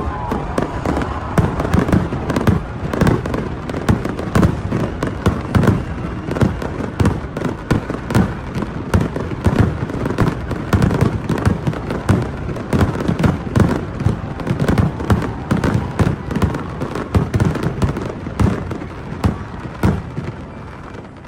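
Fireworks display: a dense, rapid barrage of bangs and crackles, with many bursts each second, easing off near the end.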